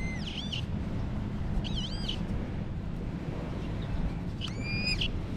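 Minelab X-Terra Pro metal detector giving three short warbling target tones, about two seconds apart, as the coil sweeps over a small target in a clump of sand.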